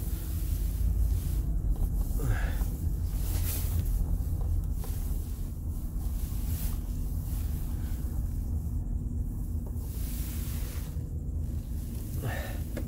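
Steady low rumble of a GMC Savana van's engine and drivetrain, heard from inside the cabin as it drives off, with a few brief swells of hiss from the tyres on the wet road.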